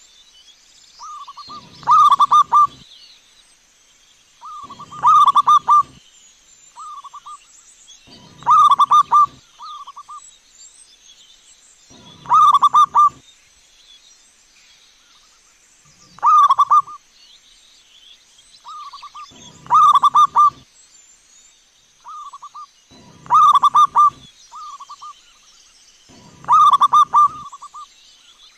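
Zebra dove (perkutut) cooing: a loud phrase of quick, rolling coos about every three and a half seconds, eight times over, with softer short coos between the phrases.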